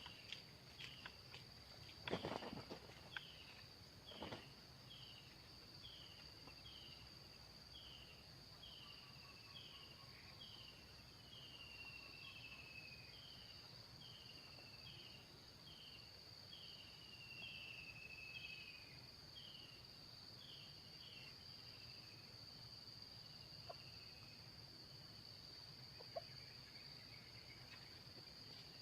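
Faint forest ambience: a steady high-pitched drone of insects such as crickets, with a short falling chirp repeated a little more than once a second that stops a few seconds before the end. A couple of faint knocks in the first few seconds.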